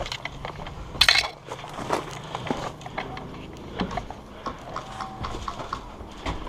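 Footsteps crunching on dry ground with gear clattering as an airsoft player moves, with one loud, sharp noise about a second in.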